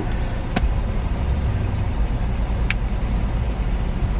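Car engine and road rumble heard from inside the cabin, a steady low drone, with two sharp clicks about half a second and two and a half seconds in.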